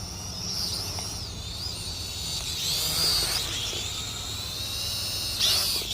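Syma X440 mini quadcopter's motors and propellers whining in flight, the pitch swooping up and down as it is thrown around, loudest about three seconds in and again near the end.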